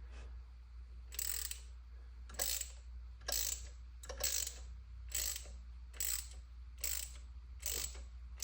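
Hand ratchet clicking in short runs, about one a second, on the back-swing of each stroke while turning a T30 Torx bolt that pulls the EGR block-off plate down flush.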